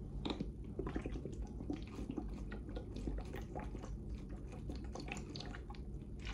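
Drinking water from a plastic bottle: swallowing and the water moving in the bottle, heard as many small irregular clicks.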